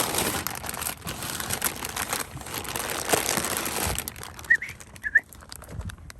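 Crinkling and rustling that is dense for about four seconds and then thins out. Two short high chirps come about four and a half and five seconds in.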